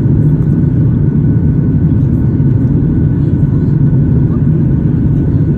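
Boeing 737-800 cabin noise during the climb after takeoff: the CFM56-7B turbofan engines and airflow give a loud, steady low rumble, with a faint steady whine above it.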